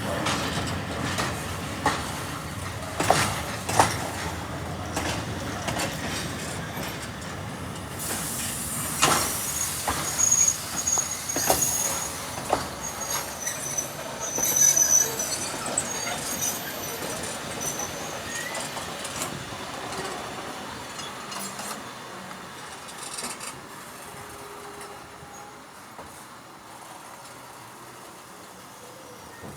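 Railway train wheels rolling slowly over the track, with sharp knocks at the rail joints early on and a high-pitched wheel squeal in the middle as the train comes into the station; the sound then dies away gradually.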